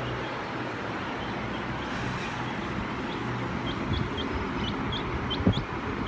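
Baby chicks peeping: a run of short, high, falling peeps starting a little past halfway in, over a steady hiss with a low hum. A single soft thump comes near the end.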